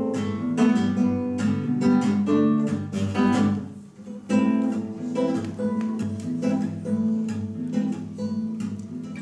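Classical guitar strummed, playing a song's instrumental introduction: chords struck in a steady rhythm, with a brief break about four seconds in.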